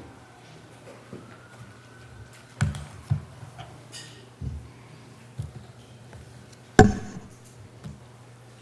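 A few sudden thuds and knocks as a speaker reaches a wooden lectern and settles in, handling the lectern, microphone and his papers, with the loudest knock about seven seconds in. A steady low hum runs underneath.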